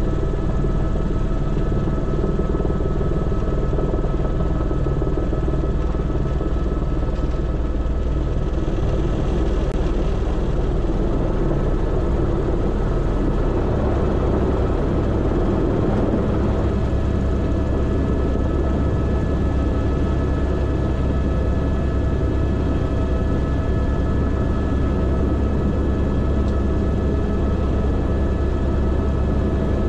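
Airbus AS350 B3 Esquilo helicopter running: a steady drone of rotor and single turbine with a constant whine, the lowest part of the drone shifting about halfway through.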